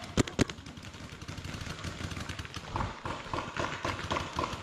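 Two sharp paintball marker shots close by, about a fifth of a second apart, then from a few seconds in a quicker run of fainter, repeated pops.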